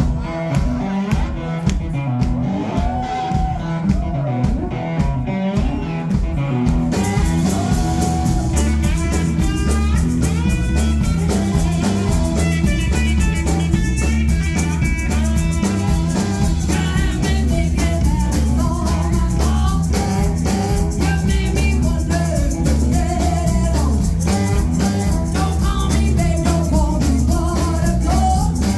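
Live rock and roll band playing a stomping, bluesy song: a sparse, steady beat with guitar for the first seven seconds or so, then the full band comes in with cymbals and bass.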